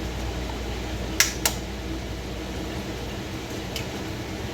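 Two sharp taps about a second in, a third of a second apart, as an egg is knocked against the rim of a bowl to crack it, over the steady hum of a room air conditioner.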